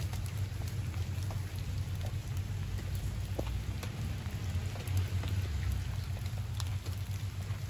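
Light rain falling, with many scattered drop ticks over a steady low hum.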